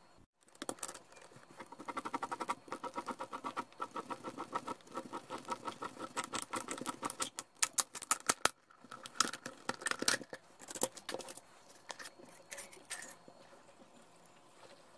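Steel can of a Baldwin oil filter being turned by hand in an oil-filter cutter: a rapid run of metallic clicks and scraping as the cutting wheel slices the can open. It stops near the end.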